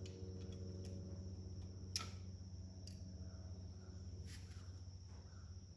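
A few faint, light clicks of a small hand tool and springs against metal parts, the sharpest about two seconds in, over a steady low hum and a faint high steady whine.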